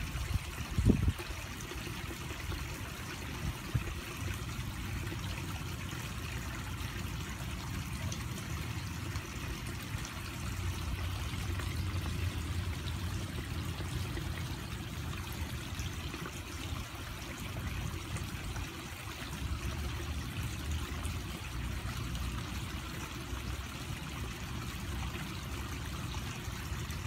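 Steady trickling and splashing of water running into a garden pond over rocks, with a low rumble underneath. A sharp bump about a second in.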